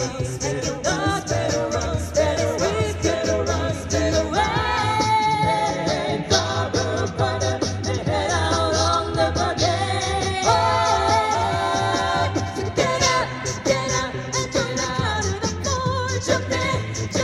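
Six-voice a cappella group singing a pop song through a PA system. Voices carry the harmonies and a low bass line, while vocal percussion keeps a steady beat.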